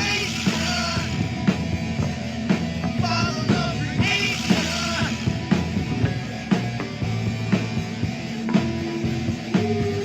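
Rock music with a steady drum beat and melodic lines that may include singing.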